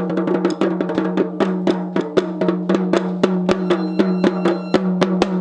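Music: quick, evenly spaced drum hits over a held low note.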